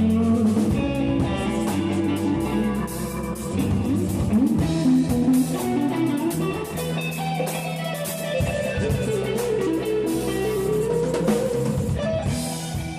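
Blues-rock music: electric guitar playing with bent notes over drums, dropping off at the very end.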